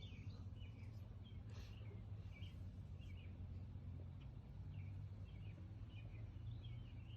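Faint birds chirping outdoors: short chirps repeating irregularly throughout, over a low steady rumble.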